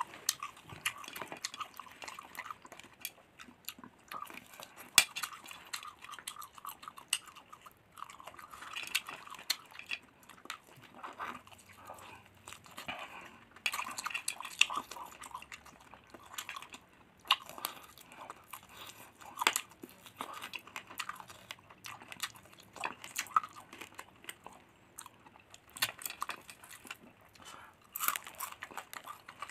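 Close-up chewing and biting of crunchy fried duck in sweet soy sauce, with irregular crunches and wet mouth smacks.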